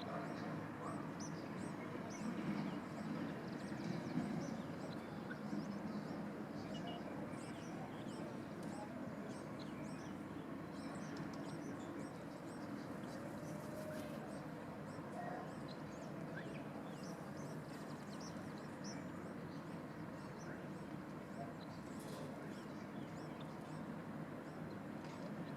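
Steady background noise with many short, faint high chirps scattered through it.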